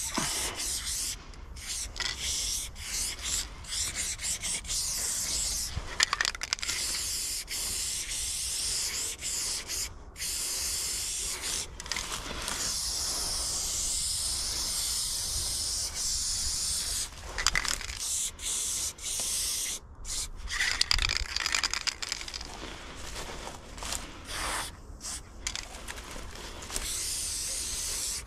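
Aerosol spray-paint can spraying in long hissing strokes that stop short and start again several times.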